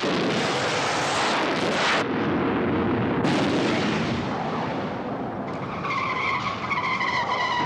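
Rocket car's rocket motor firing on a test run: a loud, steady rushing noise that drops off briefly about two seconds in and then resumes. A steady whistling tone joins near the end.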